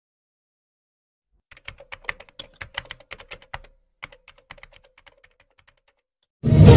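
Computer keyboard typing sound effect: rapid key clicks in two runs, the second thinning out and stopping. Loud music with drums cuts in just before the end.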